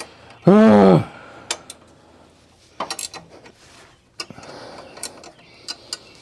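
Metal clinks and scraping from a steel exhaust tip being handled at a muffler outlet under a van, with a few sharp knocks. About half a second in comes one brief, loud pitched sound that rises and falls in pitch.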